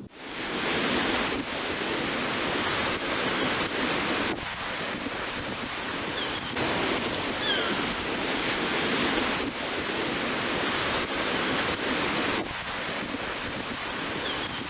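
Big sea waves breaking on a beach: a continuous rushing surf, dipping briefly twice.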